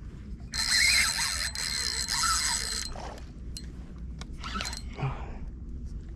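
Fishing reel's drag buzzing for about two and a half seconds as a hooked jack pulls line, then scattered clicks and rustles of handling.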